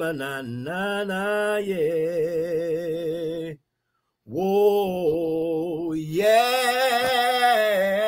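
A man singing a slow chant in long held notes with a slight vibrato, breaking off for a moment about halfway through.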